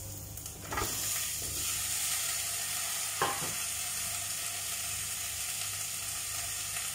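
Cubed squash dropped into hot oil with garlic and onion, starting a burst of sizzling about a second in. It settles into a steady sizzle as it is stirred in the pot, with one sharp knock about three seconds in.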